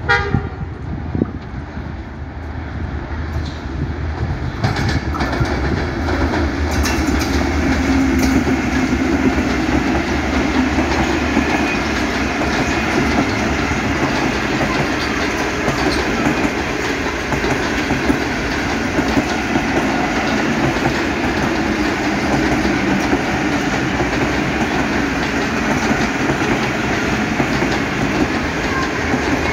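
Pakistan Railways passenger coaches of a departing express rolling past at low speed, wheels running on the rails. The rumble builds over the first several seconds as the train comes alongside, then holds steady.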